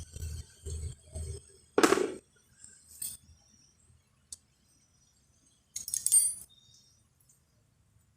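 Metal bolts and hand tools being handled while fitting the timing chain tensioner bolts on a motorcycle engine: a few soft knocks, a sharp metal clank about two seconds in, and a short metallic jingle of small parts near the six-second mark.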